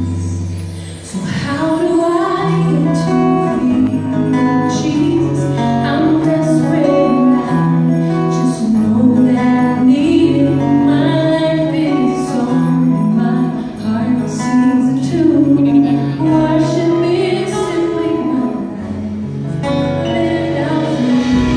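A gospel worship group singing, women's voices to the fore, over acoustic guitar and held low accompanying notes.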